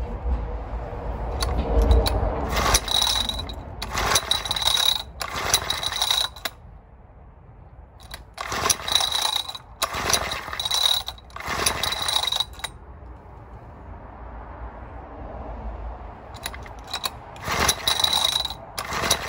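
Recoil pull-starter of a BSA 50cc engine being pulled again and again, in three runs of about three quick pulls each. Every pull is a whirring ratchet rasp. The engine turns over without firing, fuel having only just reached the carburettor.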